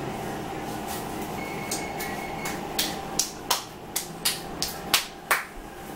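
Irregular sharp clicks and knocks, about a dozen over a few seconds, from things being handled in a kitchen, over a steady faint hum.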